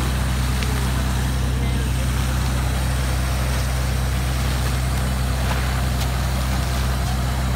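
Engine of a portable air compressor running steadily under load, with the hiss and splash of compressed air blowing water and mud up out of a borewell.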